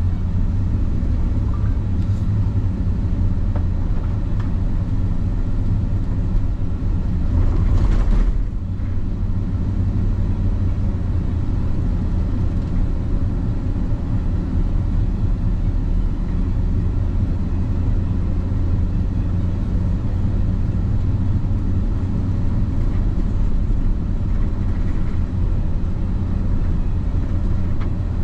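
Car driving, a steady low rumble of engine and road noise heard from inside the cabin, with a brief louder swell of noise about eight seconds in.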